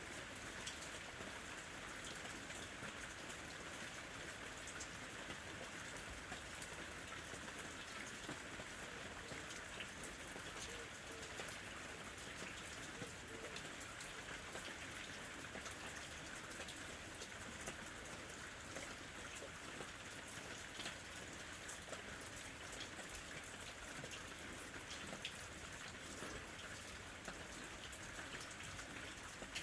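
Steady rain falling on a window, an even hiss with scattered sharp drop ticks and no thunder.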